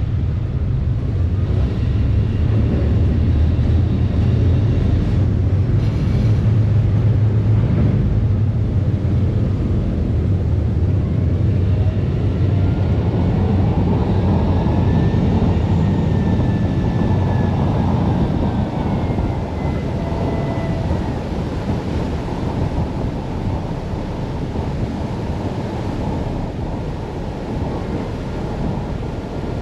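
Harbour ferry's engines running with a steady low drone over the rush of water churned up in its wake; the drone eases about halfway through.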